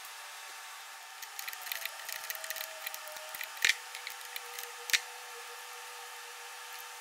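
Small metal clicks and clinks of mounting hardware being handled as an air cylinder is fitted back into its bracket, with two sharper clicks about a second apart near the middle, over a steady faint hum.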